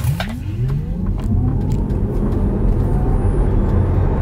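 Tesla Model 3 Long Range RWD's electric drive motor under full acceleration from a standstill, heard inside the cabin: a whine that climbs steadily in pitch, quickly at first and then levelling off, over heavy road and tyre rumble.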